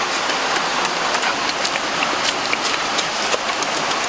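Wet chewing and lip-smacking as grilled fish is eaten by hand: many short, sharp, irregular clicks, several a second, over a steady hiss.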